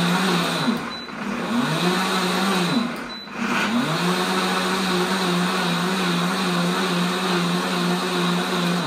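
AMZCHEF 2000 W stand blender running on its pulse setting with water in the jug, as a cleaning cycle that loosens dirt. The motor drops off and spins back up twice in the first few seconds, then runs steadily with the water churning, and stops near the end.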